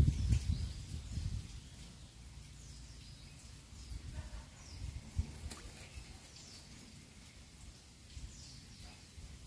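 Quiet outdoor ambience with faint, scattered bird chirps. A low rumble at the start fades out within the first second or two.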